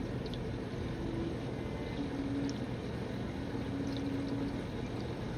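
Steady running and trickling water from aquarium tank filtration, with a faint hum.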